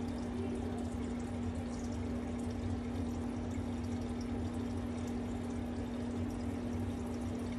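Steady rushing background noise with a constant low hum running under it, unchanging and with no distinct knocks or clicks.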